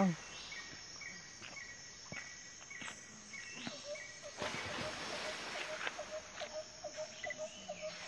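Insects and birds calling. A steady high insect drone runs throughout. Over it a short high chirp repeats about twice a second for the first half, then a lower short note repeats about three times a second.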